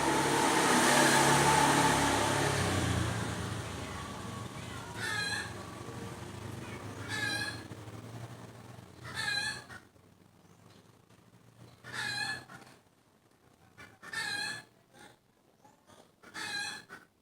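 An animal calling over and over in short, high, wavering calls, about one every two seconds, after a louder, noisier stretch in the first few seconds.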